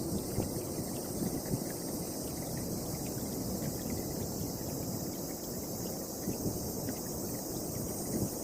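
Wind gusting, with a rough uneven rumble of wind on the microphone and a steady high hiss above it.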